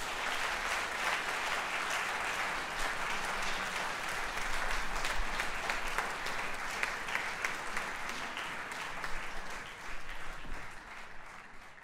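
Audience applauding, a dense steady clapping that fades away near the end.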